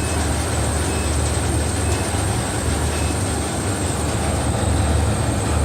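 Conveyor of a folding-box tape-applying machine running: a steady low hum with a faint high-pitched whine over it.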